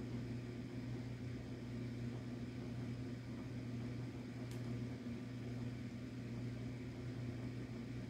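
Quiet room tone: a steady low electrical hum over faint hiss.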